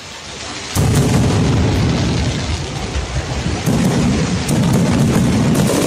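Fireworks exploding in quick succession: dense booms with sharp cracks and pops. A sudden loud barrage starts about a second in and keeps going.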